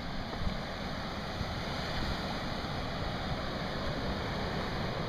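Steady wash of ocean surf breaking and running up the beach, with low gusts of wind rumbling on the microphone.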